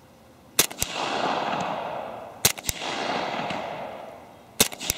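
Three shots, about two seconds apart, from a Glock 30 .45 ACP pistol fitted with a dry YHM Cobra M2 suppressor, firing Winchester jacketed hollow points. Each suppressed shot is followed a fraction of a second later by a second sharp crack and then a long fading echo.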